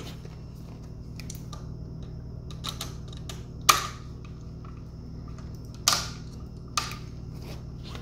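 Small clicks and taps of pliers and a bare copper ground wire being bent and hooked onto a light switch's ground screw, with three sharper clicks in the second half. A steady low hum sits underneath.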